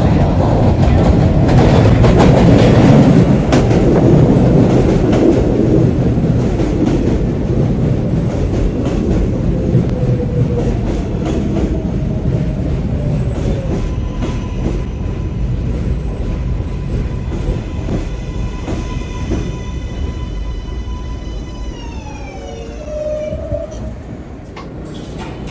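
New York City subway train running on the tracks, its wheel-and-rail rumble loudest in the first few seconds and then slowly fading. A steady electric motor whine with several tones comes in about halfway, and the tones fall in pitch near the end as the train brakes.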